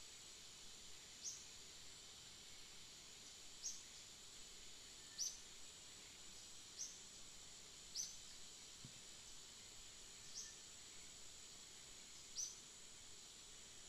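Forest ambience: a steady high insect drone, with a short, sharp, high bird chirp repeated seven times, one to two seconds apart.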